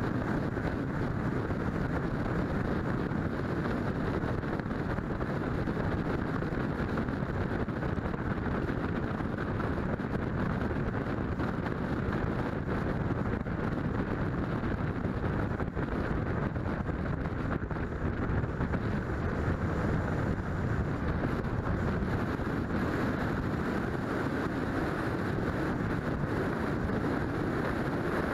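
Steady road and wind noise from a moving car, with wind rushing over the microphone and no distinct engine note or other events.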